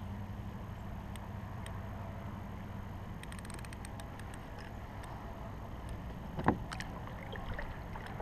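Water lapping against a plastic fishing kayak's hull, with a quick run of small clicks a little over three seconds in and one sharp knock on the kayak or its gear about six and a half seconds in.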